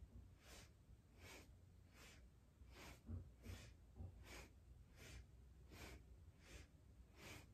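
Faint, rhythmic breathing: short inhales and exhales about every three-quarters of a second, paced to head turns left and right in a Kundalini yoga breathing kriya.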